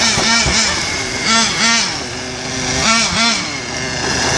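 Toy car's engine-rev sound, rising and falling in short revs, mostly in pairs.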